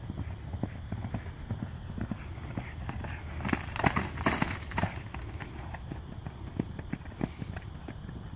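A horse running across a soft, muddy grass paddock, its hooves thudding on the turf. The hoofbeats are loudest about four seconds in, as it passes close by.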